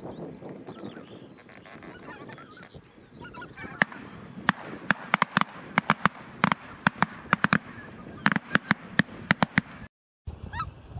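A flock of wild geese honking in flight, many overlapping calls. From about four seconds in, a rapid run of sharp, loud cracks dominates over the calls, then the sound drops out briefly near the end.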